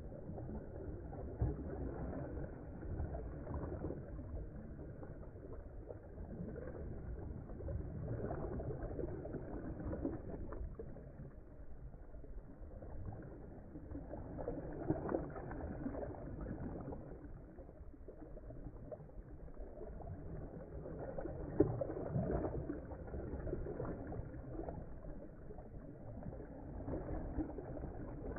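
Choppy river water lapping and splashing while a dog swims in it, as a steady rushing noise with a few short, sharp splashes.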